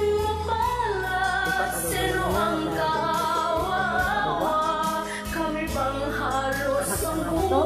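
Background music: a slow Tagalog ballad with a singer's wavering melody over a steady low bass line.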